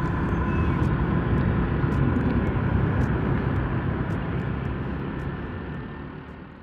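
Wind rushing over a helmet-mounted microphone, with the motorcycle's engine and road noise beneath it, on a moving motorcycle. The sound fades out near the end.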